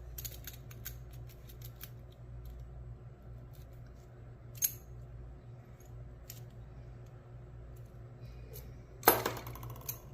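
Small metal tool working inside a brass padlock: scattered light metallic clicks and ticks, a sharper click about four and a half seconds in, and a loud burst of metallic rattling about nine seconds in.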